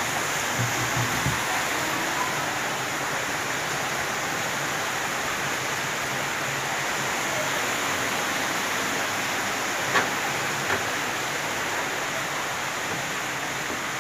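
Steady rush of running water, with two light clicks about ten seconds in.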